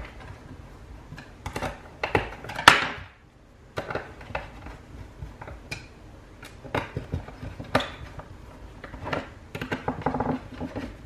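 Plastic clicks and knocks from a grey PVC electrical enclosure being handled and its lid screwed down, irregular small taps with one louder knock about three seconds in.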